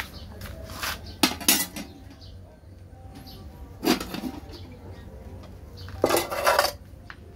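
Metal cookware being handled: aluminium pots and a wok clank and clatter in a few separate knocks, with a longer run of clattering near the end.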